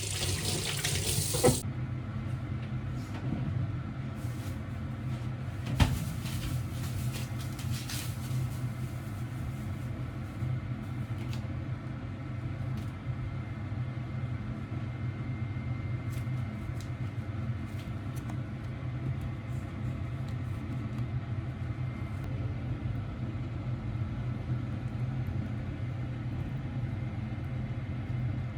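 Steady low machine hum. Water runs briefly at the start, and a single sharp knock comes about six seconds in, with faint light clicks after.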